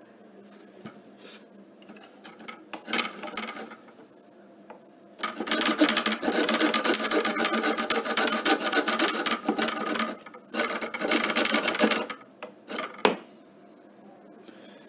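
Hand saw cutting through an aluminium threshold profile in quick back-and-forth strokes: a few short strokes about three seconds in, then steady sawing for about seven seconds with a brief pause, then a few last strokes.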